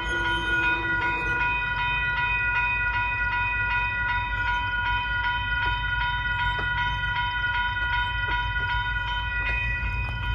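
Railroad grade crossing warning bell ringing without a break as a single steady pitched tone, over a low rumble.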